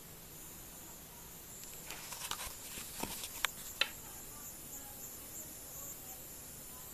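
Handling noise as a camera is moved: a short cluster of rustles and sharp clicks a couple of seconds in, over a steady faint hiss.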